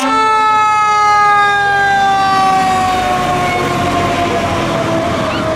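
Pierce Velocity fire engine's siren sounding one long tone that glides slowly down in pitch as the truck passes and pulls away, over the low rumble of its engine.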